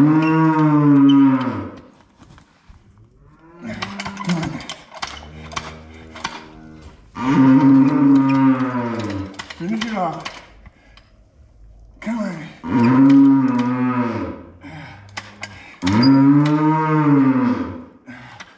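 Cow in labour bellowing as her calf is pulled with a calf jack during a hard assisted birth. She gives four long, loud moos of about two seconds each, with a lower, quieter call between the first two.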